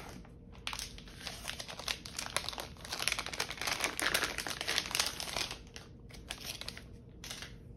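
Shiny metallised anti-static bag crinkling and rustling as it is opened and peeled off a replacement laptop battery. The crinkling is louder in the middle and thins out near the end.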